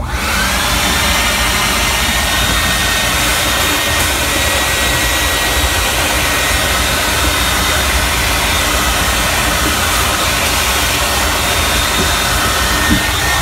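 Wet/dry shop vacuum switched on, its motor whining up to speed in the first moment and then running steadily with a loud rushing suction through the hose.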